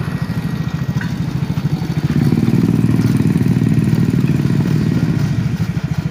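Motorcycle engine running with a fast, even pulse, swelling louder for a few seconds in the middle before settling back.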